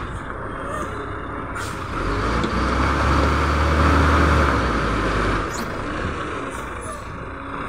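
Heavy tractor-trailer truck's diesel engine running low, then revving harder for about three seconds as the truck creeps while being manoeuvred, before easing back. Brief hisses of air can be heard.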